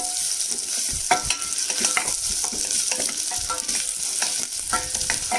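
Finely chopped garlic and ginger sizzling in hot ghee in a steel saucepan, stirred, with many short clinks and scrapes of the spoon against the pan.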